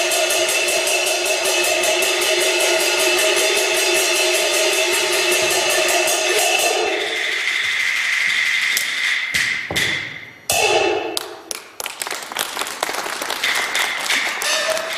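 Chinese opera percussion ensemble playing a fast, even run of strikes over steady ringing tones. About seven seconds in the run breaks off into separate, irregular strikes, the loudest about ten and a half seconds in.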